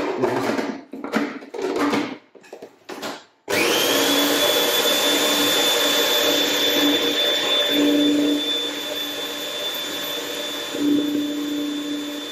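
Kenwood food processor chopping walnuts, basil and mint for pesto. A few knocks and rattles as the feed-tube pusher is fitted, then about three and a half seconds in the motor starts suddenly and runs steadily with a high whine.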